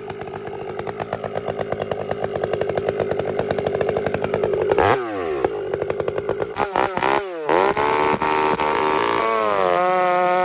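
Two-stroke chainsaw cutting with a freshly square-ground chain: the engine pulses and grows louder under load, drops sharply in pitch about five seconds in, stutters briefly, then settles into a steady high buzz.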